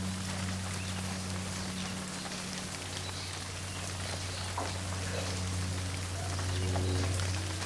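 Steady rain falling, with scattered louder drops, over a low steady hum.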